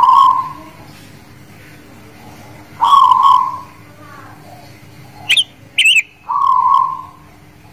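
Caged zebra dove (perkutut) of the local guling Muria type cooing its song: three loud phrases about three seconds apart. Two short, high chirps come between the second and third phrases.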